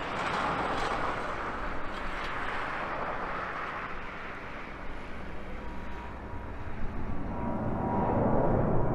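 Boeing 737-700's CFM56-7B turbofan engines at take-off climb thrust, a steady jet roar that grows louder over the last few seconds as the aircraft climbs toward overhead. A thin whine comes in about six seconds in.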